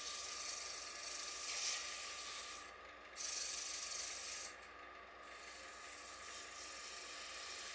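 Sandpaper rubbing against a small wooden box turning on a wood lathe: a steady hissing scrape over the lathe's running tone. The sanding lets up briefly twice, about three and five seconds in.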